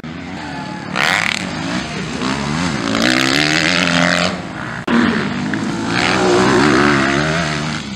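Motocross bike engines revving hard, pitch climbing and dropping as the riders work the throttle over the jumps and corners. The sound breaks off abruptly a little under five seconds in, then picks up again with another bike revving.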